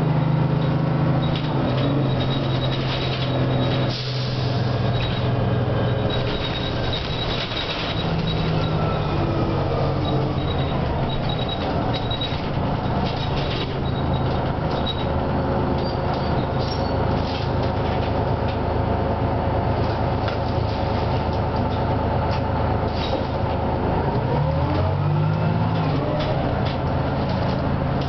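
Detroit Diesel 6V71N two-stroke V6 diesel of a 1987 GM Classic bus running under way, heard from inside the bus, with its Allison V731 automatic transmission. The engine note changes several times, and a whine falls in pitch about ten seconds in and rises again near the end.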